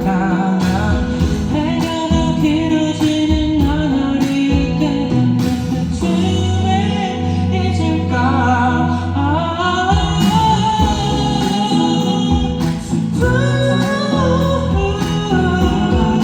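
Live pop song: a male singer's voice over band accompaniment with guitar and a steady drum beat.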